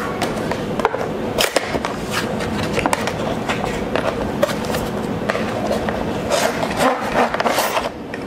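Toy packaging being torn and opened by hand: continuous rustling and scraping of cardboard and plastic, with many sharp clicks and crackles.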